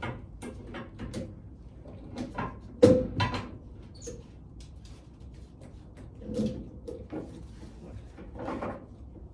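Ratchet tie-down strap being let off by hand: scattered clicks and knocks as the ratchet is worked and the strap slackens, with one louder knock about three seconds in.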